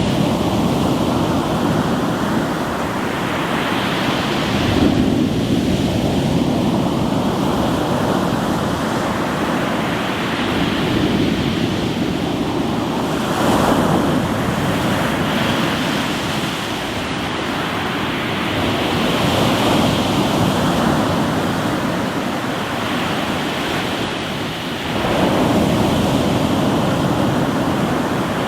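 Sea waves breaking on a rocky shore: a continuous rush of surf that swells and eases as each wave comes in, every several seconds.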